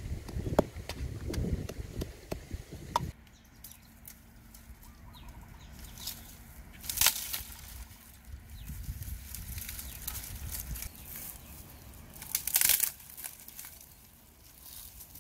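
A wooden pestle knocks repeatedly in a small clay mortar, several sharp taps over the first three seconds. Then comes rustling and swishing through dry brush and leaves, loudest about seven and twelve seconds in.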